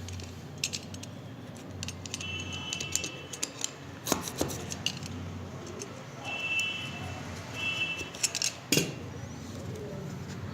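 A smartphone's cardboard retail box being opened and handled: scattered clicks and taps, with three short high squeaks as the lid slides off.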